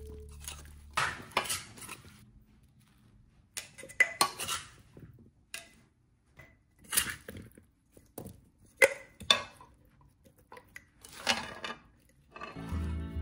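Metal spoon and dishes clinking and knocking in about six short, scattered clusters as cucumber pickle is mixed and handled in the kitchen. Background music comes in near the end.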